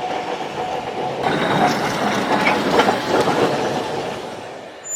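Vintage electric tram running along its rails, a steady rolling rattle of wheels on track that fades away near the end.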